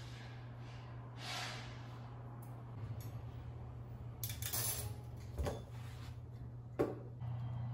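Stainless-steel folding wire dish rack being handled and lifted from a steel sink, its wires clinking and rattling in a few short bursts, with the sharpest clink near the end.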